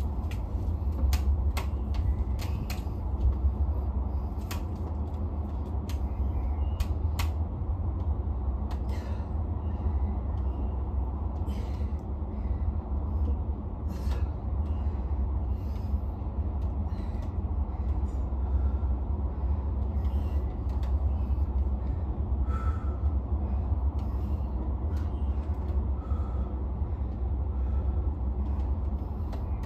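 Steady low rumble of outdoor city background noise, with scattered faint clicks and taps.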